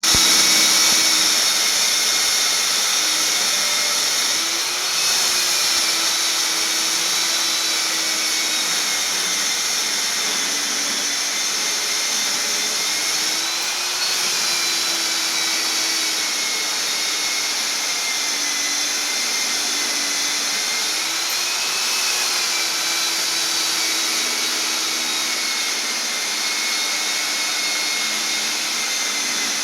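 Electric concrete-cutting machine's motor running with a steady high whine over a hiss. Its pitch wavers a few times.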